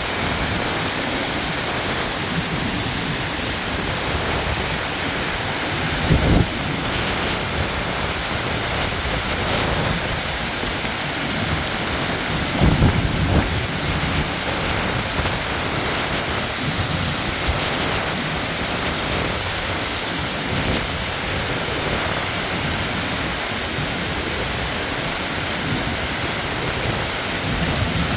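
Waterfall: falling water making a loud, steady rush, with a few brief low thumps about six and thirteen seconds in.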